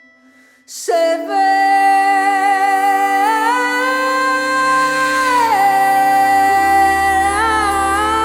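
Music: a woman's voice comes in about a second in, singing long held notes of a medieval cantiga that slide up and down, over a steady instrumental drone.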